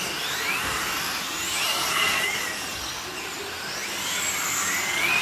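Several 1:8-scale electric GT radio-controlled cars racing, their brushless motors whining in overlapping high-pitched tones that rise and fall with the throttle.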